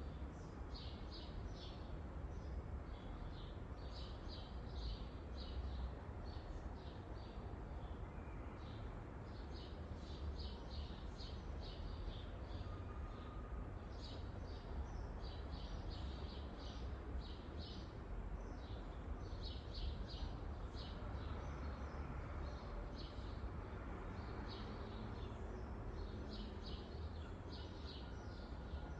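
Rural garden ambience: small birds chirping in quick runs of short, high notes that repeat every second or two, over a steady low rumble.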